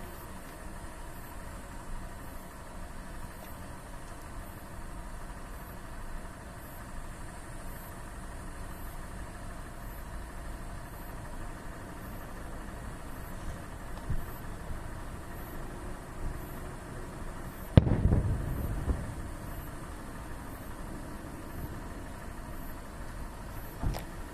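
A single loud firework shell bursting with a deep boom about two-thirds of the way in, its rumble dying away over about a second. A fainter bang comes near the end, over a steady low background rumble.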